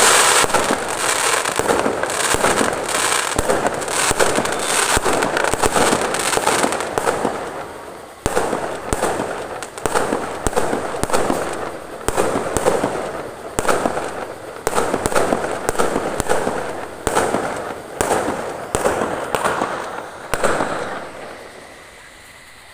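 Fireworks going off: a dense spell of overlapping bangs and crackling, then a steady run of bursts about one a second, each starting suddenly and crackling away, until they die down near the end.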